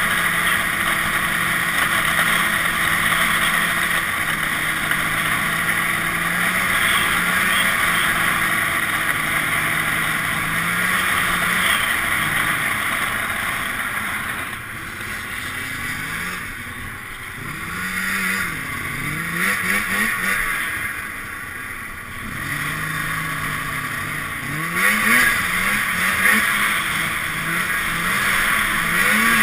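Arctic Cat Snopro snowmobile's two-stroke engine running at a steady speed, then throttled up and down repeatedly in the second half, its pitch rising and falling, over a steady rushing hiss.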